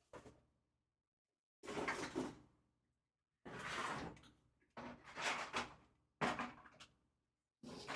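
Handling noises from working inside an open PC case: five separate knocks and scrapes of parts being moved and fitted, each about a second long, starting sharply and fading.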